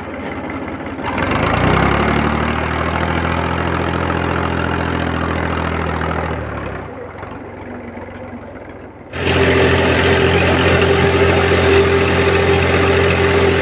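Diesel tractor engine hauling a loaded trolley: it revs up about a second in, then fades as the tractor moves off. From about nine seconds in, a tractor engine runs loud and steady, heard close from the driver's seat while driving.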